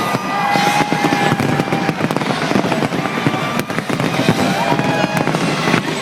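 A large fireworks display: continuous, rapid bangs and crackles overlapping one another.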